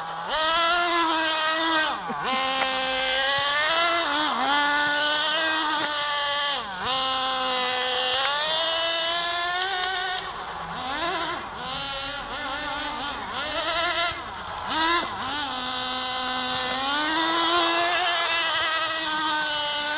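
Small engine of a GS Racing Vision radio-controlled car, revving up and down over and over as it is driven, with brief drops to a lower pitch between runs.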